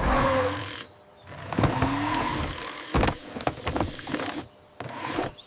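Whirring of a small motorised mechanism moving in stages, with sharp clicks and short gliding tones; it stops briefly twice.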